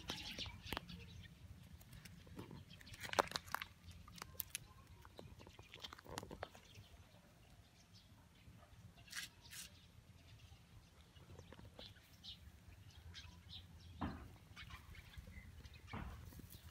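Faint rustling and clicking of a cat moving and pawing over grass and loose pebbles, the clicks bunched about three seconds in, over a low rumble of wind.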